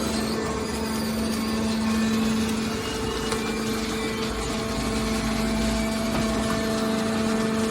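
Hydraulic metal baler running, its pump unit giving a steady hum over mechanical noise, with a deeper rumble partway through.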